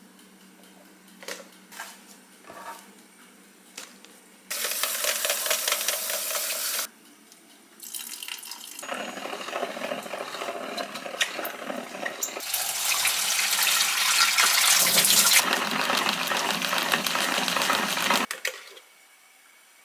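Shredded cabbage in a plastic salad spinner: light handling clicks, then tap water runs into the bowl for about two seconds. This is followed by a longer stretch of water and churning as the spinner's plunger is pumped to wash and spin the cabbage dry. It cuts off sharply near the end.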